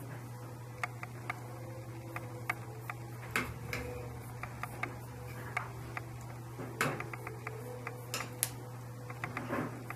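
A steady low hum with light, irregular clicks and ticks scattered through it, a few of them sharper than the rest.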